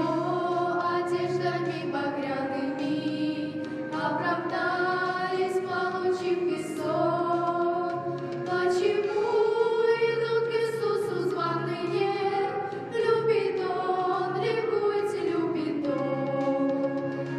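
A choir singing a slow song in long held notes that rise and fall in pitch.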